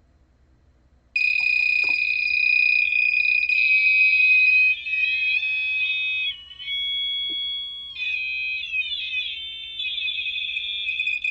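Arduino-driven buzzer starting a steady high-pitched tone about a second in, its pitch then stepping and gliding up and down as the potentiometer knob is turned, before settling back near the first pitch toward the end.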